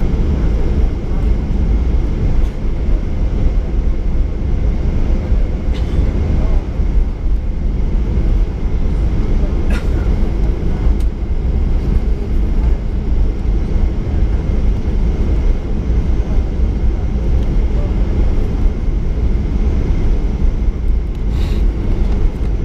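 Cabin noise of a Boeing 737-800 taxiing, heard through the cabin wall: its CFM56-7B engines at low power give a steady low rumble with a faint high whine. A couple of faint clicks come about ten seconds in and near the end.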